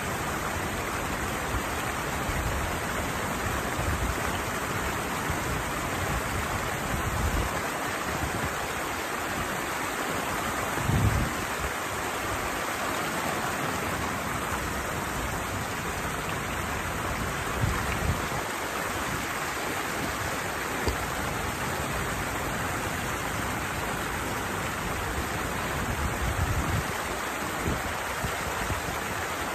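Steady rush of water pouring over a small weir on an irrigation channel, an even hiss of falling water. A few short, low bumps break through, the strongest about eleven seconds in.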